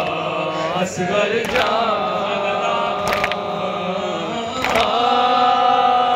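Male reciters chanting a Shia noha (Muharram lament) through a loudspeaker system in long held notes. Mourners' chest-beating (matam) lands as sharp slaps about every one and a half seconds.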